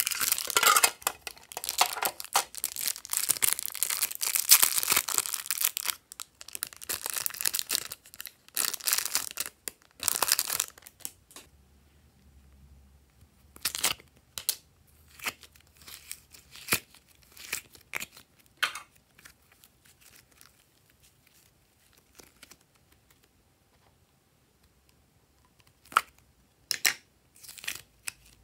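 Thin plastic slime packaging being crinkled and pulled open, a dense crackling for about the first ten seconds. After that come scattered soft clicks and small sticky pops as the slime is handled.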